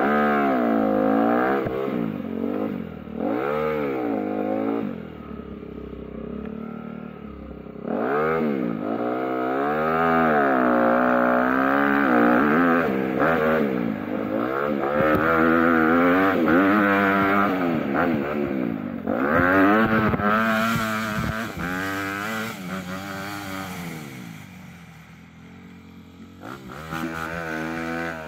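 An engine revving up and down over and over, its pitch climbing and falling in waves. It fades briefly near the end and then picks up again.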